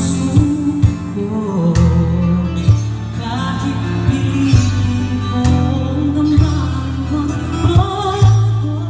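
Music with singing and a steady bass line.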